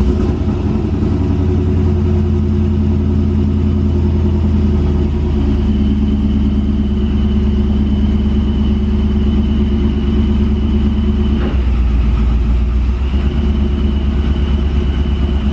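Boosted GMC Sierra pickup's engine idling steadily just after being started for the first time after sitting a long time with the battery out. About eleven and a half seconds in, the idle note drops a little lower.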